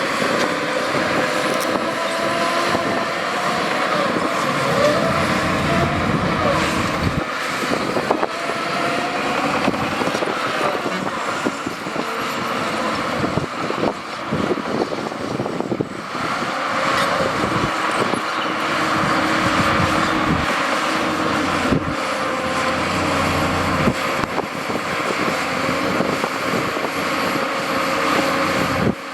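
Heavy diesel earthmoving machinery running steadily, engine noise with scattered knocks and clanks.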